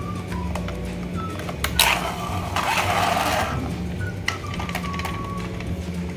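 Background music with a steady low drone and a thin melody. About two seconds in, a loud burst of water splashing and swishing lasts a second or two as a plastic toy van is rubbed and sloshed in a basin of water.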